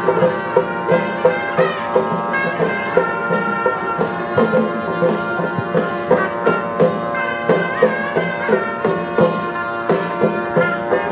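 Live traditional South Indian temple music: a sustained melody over a steady drone, with a drum beating a little over twice a second.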